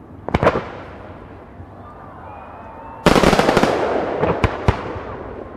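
Fireworks going off: a quick cluster of sharp bangs, then about three seconds in a dense burst of crackling that slowly fades, with two more sharp bangs near the end. Faint whistles run underneath.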